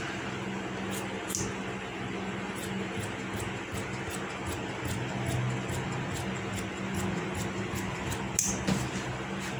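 Large tailor's shears cutting through cotton cloth on a wooden table, with a few sharp clips of the blades, the clearest pair near the end. A steady mechanical hum runs underneath.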